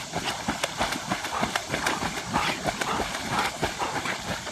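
A dog's claws clattering on a hard tabletop in quick, irregular taps.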